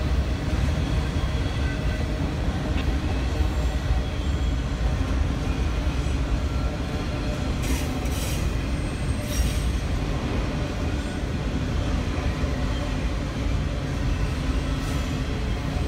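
Freight train of autorack cars rolling past: a steady rumble of steel wheels on the rails, with a few brief high squeals about eight and nine seconds in and again near the end.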